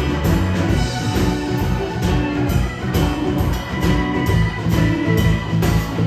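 A blues-rock band playing live: an instrumental passage with guitar over a steady drum-kit beat and bass.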